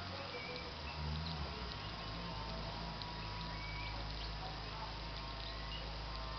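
Small birds chirping, with short high calls scattered throughout, over a steady low hum.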